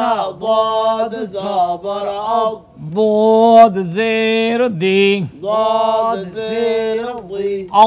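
Male voice chanting an Arabic Quran-reading spelling drill in a sing-song recitation, with short syllables and longer held notes.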